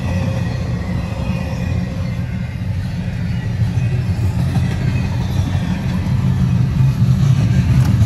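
Double-stack intermodal container cars rolling past on the rails: a steady low rumble of wheels on track that grows a little louder near the end.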